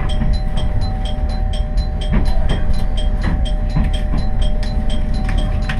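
Noto Railway diesel railcar running along the line, heard from inside: a steady low rumble with two held hum tones and a light, even ticking about three times a second.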